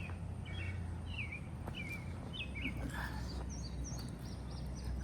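Songbirds chirping: a run of short, repeated call notes about two or three a second, then a few higher, quicker notes near the end, over a steady low background rumble.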